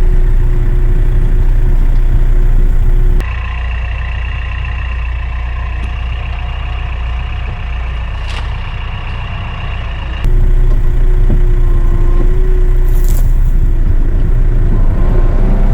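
Kioti RX7320 utility tractor's diesel engine running steadily under loader work. About three seconds in it drops abruptly to a quieter sound with a steady high whine. About seven seconds later it switches back to the louder engine sound.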